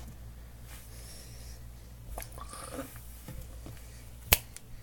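Faint breathing and mouth sounds from someone with a lollipop in his mouth, over a low steady hum. A single sharp knock about four seconds in, as a hand comes up against the phone.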